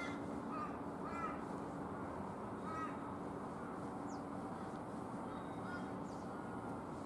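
A crow cawing, three short calls in the first three seconds, over a steady outdoor background hum.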